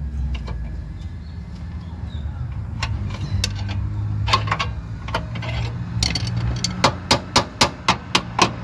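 Metal tools clinking and knocking against a car's front lower control arm, then from about seven seconds in a fast, even run of sharp metal taps, about four a second, as the suspension parts are tapped into line for the bushing bolt. A steady low hum runs underneath.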